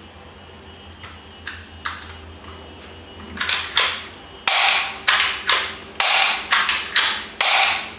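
Plastic clicks and clacks from a spring-powered HK USP airsoft pistol in ABS as its slide is fitted back onto the frame and worked. A few light clicks come first, then from about three seconds in a quick run of loud, sharp clacks.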